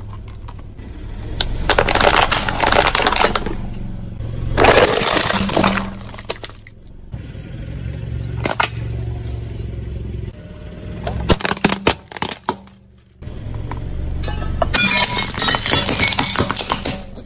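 Car tyre rolling over and crushing small brittle objects on concrete: several separate bursts of cracking, crunching and snapping, one a single sharp crack about halfway through, over a steady low hum.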